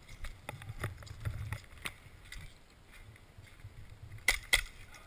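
Light clicks and rustling of handling, then two sharp snaps about four seconds in, a quarter second apart: airsoft replica shots.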